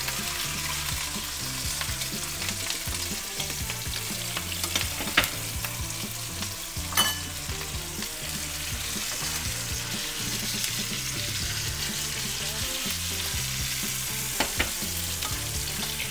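Bone-in tomahawk beef steak sizzling steadily in a frying pan of melted butter with garlic and thyme as it is butter-basted. A few sharp metal clinks of the basting spoon on the pan, the loudest about seven seconds in.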